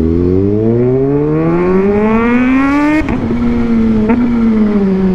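Motorcycle engine pulling up through the revs under acceleration, a quick upshift about three seconds in, then the revs slowly falling as the throttle eases off.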